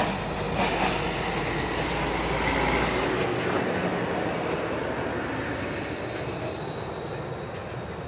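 Steady rumbling rush of a passing vehicle, loudest a few seconds in and then easing off, with a faint high whine that slides slowly down in pitch. A few sharp knocks in the first second.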